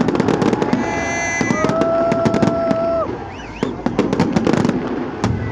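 Fireworks going off in quick succession, a dense rattle of cracks and bangs. A steady horn-like tone sounds over them for about a second and a half in the middle, and a short up-and-down whistle comes near the end.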